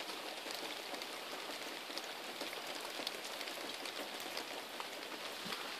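Burning fuel cell of a paper sky lantern, a steady hiss with faint scattered crackles as it heats the air inside the lantern.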